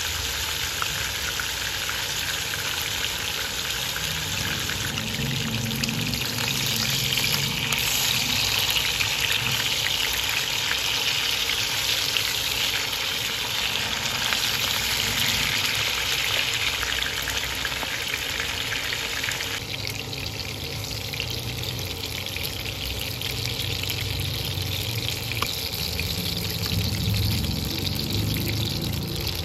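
Chicken breasts frying in hot oil in a pan: a steady sizzle with small spattering pops, dropping a little about two-thirds of the way through.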